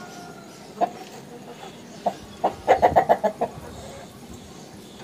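Aseel chicken clucking: a single cluck just under a second in, another near two seconds, then a quick run of about eight clucks over roughly a second.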